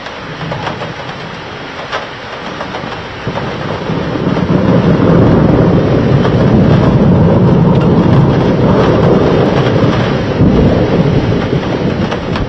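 Rain hiss with a long roll of thunder that builds about four seconds in and rumbles on, low and loud, for several seconds.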